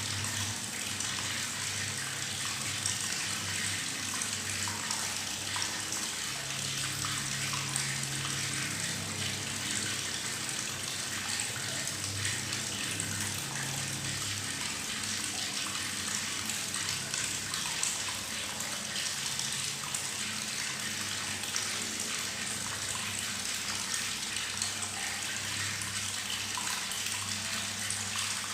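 Tap water running steadily into a bathtub, splashing and gurgling with bubbles as it fills.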